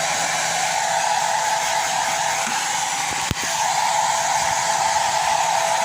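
Hair dryer blowing steadily, a constant rushing of air and motor, with one sharp click about three seconds in.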